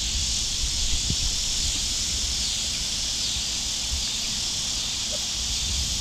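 Cicada chorus: a loud, steady, high-pitched buzzing drone that does not let up.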